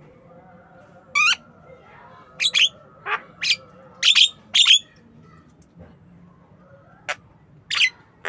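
Javan myna (jalak kebo) calling: a series of short, sharp squawking calls in quick clusters, with a pause of about two seconds in the middle before a few more calls near the end.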